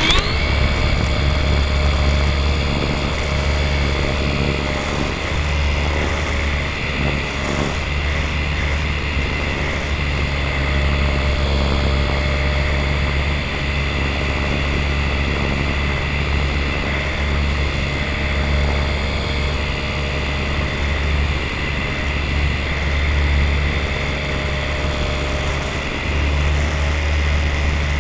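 Radio-control model airplane's motor and propeller, heard from a camera slung under the plane: a steady high-pitched whine through the flight, with wind rumbling on the microphone.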